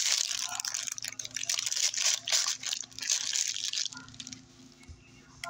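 Paper food wrapping being handled and crinkled, a dense run of small crackles and rustles that fades out about four seconds in.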